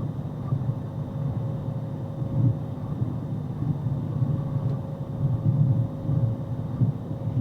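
Steady low rumble of a moving vehicle's engine and road noise, rising and falling a little in loudness, with no horn sounding.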